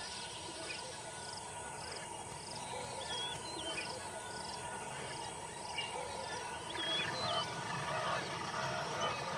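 Spotted hyenas calling at a kill, wavering whining calls that build from about seven seconds in. Behind them are chirping birds and a high pulsing call repeating about twice a second.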